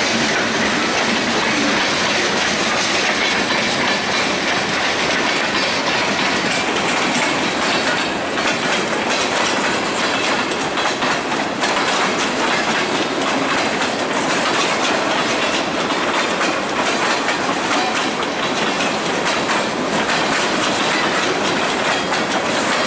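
Cars of a mixed freight train rolling past at close range: steady noise of steel wheels on rail with constant clickety-clack as the wheels cross rail joints.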